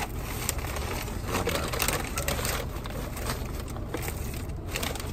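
Paper takeout bag and food wrappers rustling and crinkling as food is unpacked by hand, with scattered irregular clicks and taps.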